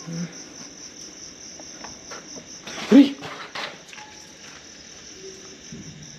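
Crickets chirping steadily in a high, pulsing trill, with one brief, sudden louder noise about three seconds in.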